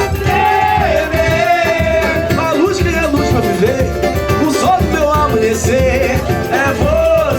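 Live samba de raiz: voices singing a melody over a band with steady percussion.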